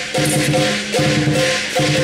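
Background music: short phrases of held notes repeating about every three-quarters of a second over a bright, hissing backing.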